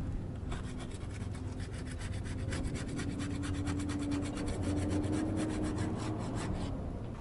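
Hand scraper rasping old antifouling paint off a sailboat's keel in rapid, even strokes, several a second, stopping near the end.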